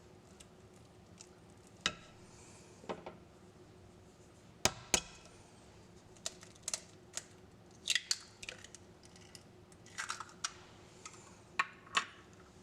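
Irregular light clicks and taps of small objects being handled in a kitchen, some in quick pairs, over a faint steady hum.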